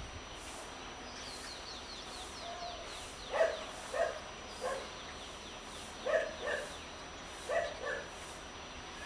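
A dog barking: about seven short barks in loose pairs, starting a little over three seconds in. Before them a bird gives a quick run of falling chirps.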